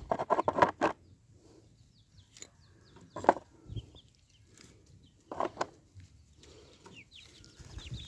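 Bricks knocking against the plastic bed of a toy dump truck as they are loaded by hand: a quick clatter of knocks at the start, a single knock about three seconds in, and two more about five and a half seconds in. Chickens cluck in between.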